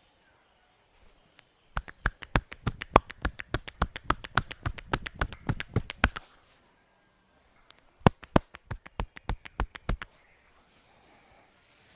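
Rapid, rhythmic hand strikes of a head massage's percussive tapping, about seven sharp slaps a second. A run of about four seconds, a short pause, then a second run of about two seconds.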